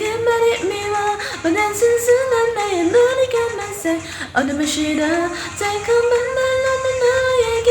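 A woman singing a K-pop song cover, one melody line with held notes that dips to lower notes about four seconds in and climbs back.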